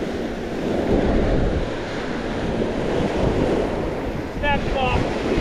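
Small surf waves breaking and washing up the sand in a steady rushing wash that swells and ebbs, with wind buffeting the microphone.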